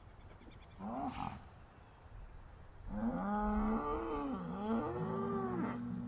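Cows mooing in distress: a short moo about a second in, then a long moo starting about halfway through that wavers and dips in pitch before holding a steady note.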